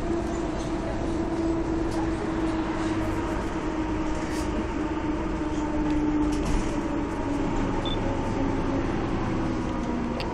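Mercedes-Benz OM447hA six-cylinder diesel and ZF 4HP590 automatic gearbox of a 1996 Jelcz M122MB city bus running while the bus drives, heard on board. A steady drivetrain whine slowly falls in pitch as the bus loses speed.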